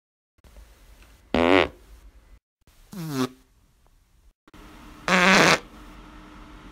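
Three separate farts, each short and loud, with the middle one sliding down in pitch.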